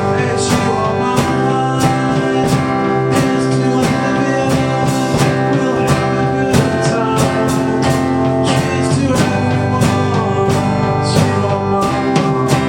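A three-piece rock band playing an instrumental passage: drum kit keeping a steady beat under sustained bass and guitar chords.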